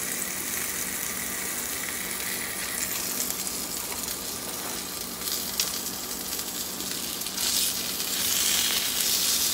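Salmon fillets sizzling as they cook on a hot grill, a steady hiss that grows louder about seven and a half seconds in, with a light click about halfway through.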